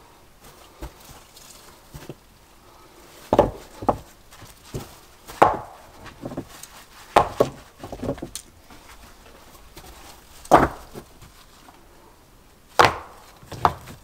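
Sharp knocks of wood being struck, about nine irregular strikes spaced one to two seconds apart.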